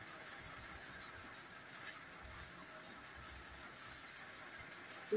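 Quiet room tone with faint sounds of people eating rice by hand: fingers mixing rice on a plate and soft chewing.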